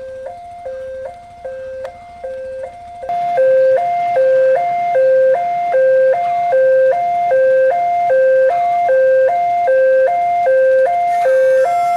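Electronic railway level-crossing warning alarm sounding a steady two-tone ding-dong, high and low notes alternating about once every 0.8 seconds. It gets distinctly louder about three seconds in.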